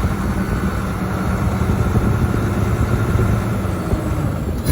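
Semi truck's diesel engine idling steadily while the dump trailer is raised to unload, with a faint steady whine above the rumble.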